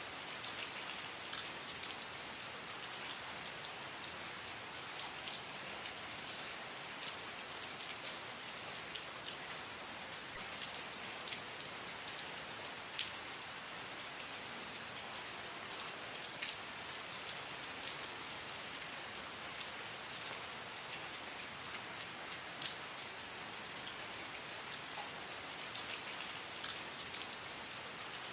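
Steady rain falling, with a continuous hiss and many individual drops ticking sharply on a nearby surface.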